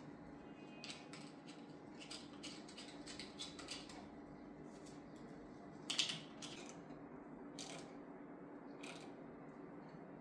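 Scattered light metallic clicks and clinks of small parts and tools being handled, the loudest about six seconds in, over a steady low hum.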